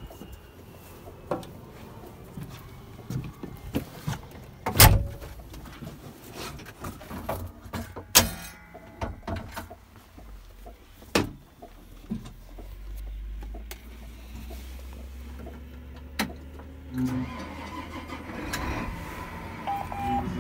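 Knocks and clunks of someone moving about in a tractor cab, with a loud knock about five seconds in, then the tractor engine starts about twelve seconds in and runs with a steady low drone.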